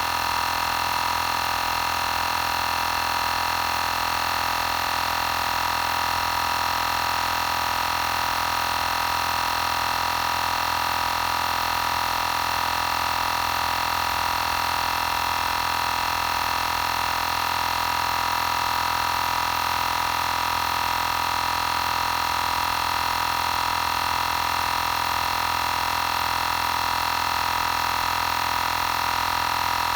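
Xiaomi Portable Electric Air Compressor 2 running steadily while inflating a spare tire, a constant, unchanging whine.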